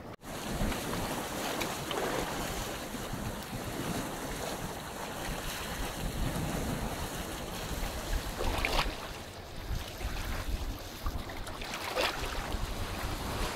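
Wind buffeting the microphone over sea waves washing against a rocky shore, with two brief louder rushes in the second half.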